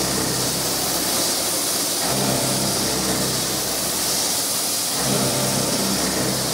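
TOS FUT milling head machining a Francis turbine part: a steady machine hum of several low tones under a strong hiss, the tones dropping away briefly about two seconds in and again near five seconds.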